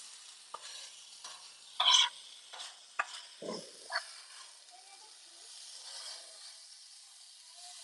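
Shredded hash browns and bacon sizzling on a flat-top griddle, with a metal spatula scraping and tapping the griddle several times; the loudest scrape comes about two seconds in.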